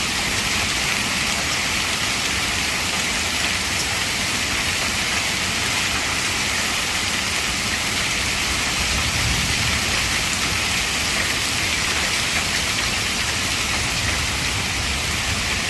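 Hailstorm: hail and rain pelting down in a dense, steady hiss, with no let-up.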